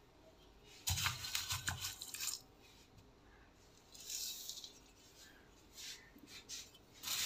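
Cracked maize poured from a small steel dish into a large steel mixing bowl of ground feed. A knocking, rustling stretch of handling starts about a second in, a brief hiss of grain sliding out comes around four seconds in, and a few light clicks follow near the end.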